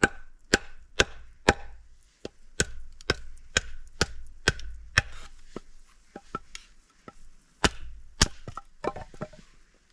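Batoning dry kindling: a wooden baton knocking on the spine of a bushcraft knife, driving it down through a small upright log on a wooden board. Sharp wooden knocks come about two a second for five seconds, then a few spaced strikes and a quick cluster near the end.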